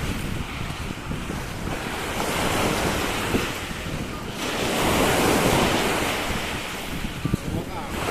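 Surf breaking and washing on a beach, swelling louder about halfway through, with wind buffeting the microphone.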